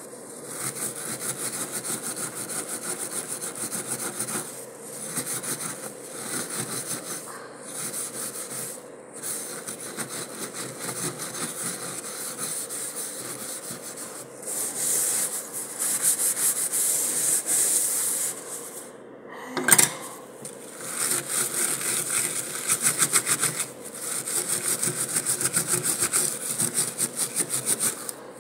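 Fast back-and-forth scrubbing on the rim of a stainless steel sink drain, a rasping rub in quick even strokes broken by short pauses. One sudden sharp sound stands out about two-thirds of the way through.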